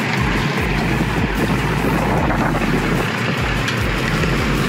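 Steady engine and road noise of a car being driven, with a heavy, uneven low rumble.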